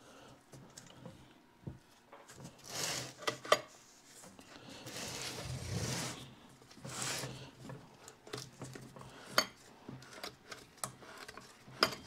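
The metal governor housing and parts of a 1927 John Deere D tractor are being handled and turned over on a cardboard-covered table. There are scattered sharp metallic clinks and knocks, and a few rubbing, sliding sounds in between.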